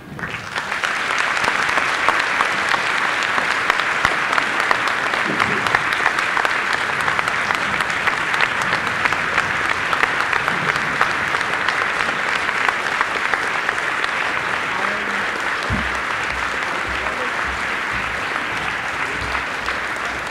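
Audience applauding: a dense crackle of many hands clapping that starts abruptly as a speech ends, holds steady and loud, and eases slightly near the end.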